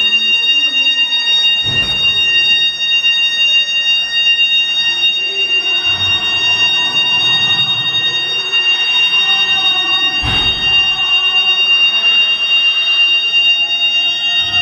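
Building alarm sounding a steady, unbroken high-pitched tone: the alarm set off to clear the building.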